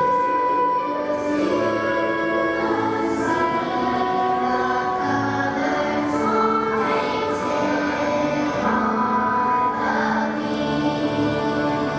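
Children's choir singing a gentle waltz with instrumental accompaniment, voices holding long notes.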